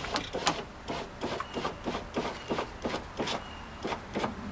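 Rubber window run channel being pressed into the truck door frame's track by hand: rubbing, with a run of short sharp clicks, about two or three a second.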